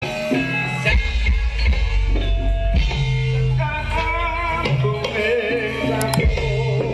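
Javanese gamelan music played live for tayub dancing: low sustained gong and drum tones under held melodic notes, with a singer's voice wavering above them.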